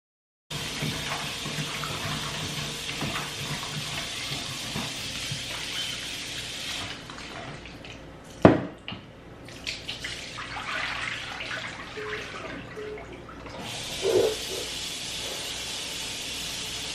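Kitchen tap running into the sink. The water stops about seven seconds in and runs again from about thirteen and a half seconds. A sharp knock comes about eight and a half seconds in, with light kitchen clatter around it.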